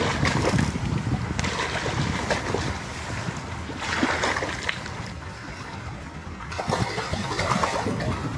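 Wind buffeting the microphone in gusts, a low rumble with surges of hiss every second or two, over water splashing and lapping.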